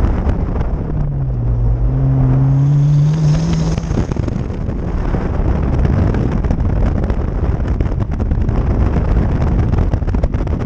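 Toyota Corolla AE86 GT-S's twin-cam four-cylinder engine under hard acceleration on an autocross run, its note rising from about a second in and dropping off near four seconds in as the throttle comes off. Heavy wind buffeting on the microphone runs under it.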